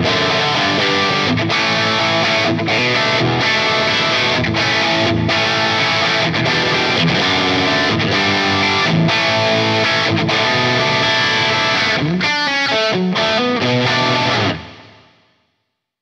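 Soloking MT-1 Telecaster-style electric guitar with Wilkinson Alnico V pickups, played with overdrive: a chordal riff with short stops and a quick run of notes about twelve seconds in. A last chord then rings out and fades to silence near the end.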